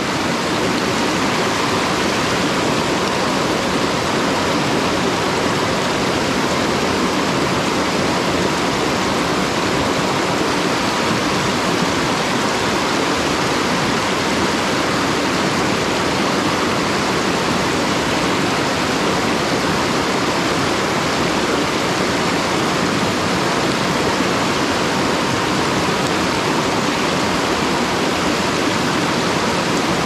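Rushing water of a mountain stream: a steady, even rush.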